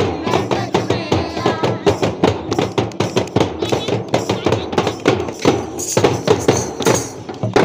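Folk dance music: drums beating a fast, steady rhythm under group singing, with bright jingling joining about six seconds in.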